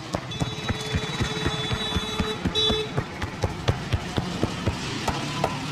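Rhythmic slaps and taps of hands on a head and neck during a barber's head massage, about three or four a second. Through the first half a steady high tone sounds, then stops.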